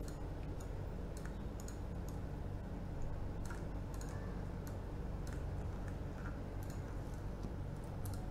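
Light, irregular clicks of a computer mouse and keyboard, a few a second, over a steady low hum.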